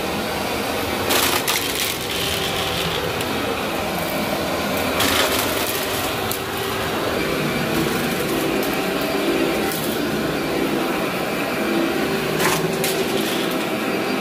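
Workhorse upright vacuum cleaner running steadily over carpet, crackling as it picks up grit and dry debris, with a few sharp cracks: about a second in, around five seconds in and near the end.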